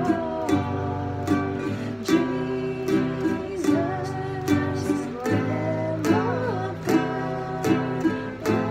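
Woman singing a slow worship song while strumming a ukulele, a steady strum stroke about every second under her voice.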